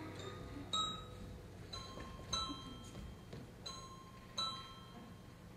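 Quiet waltz music: single high, bell-like notes struck about once a second, each ringing out and fading.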